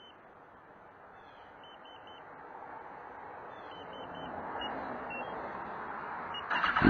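Faint groups of three short high beeps from the Spy 5000M motorcycle alarm system, about every two seconds. Just before the end, the Kawasaki ZX-10R's inline-four engine fires on remote start with a loud burst and keeps running.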